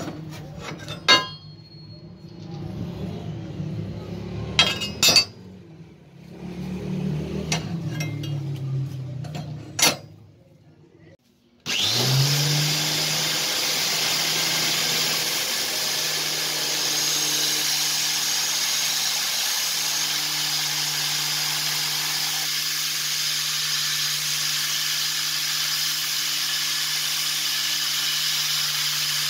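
Several sharp metallic clanks from a steel circular saw blade being handled. About 12 seconds in, an angle grinder rigged to drive a homemade belt grinder spins up and runs steadily, its belt grinding the edge of a steel plate cut from the blade.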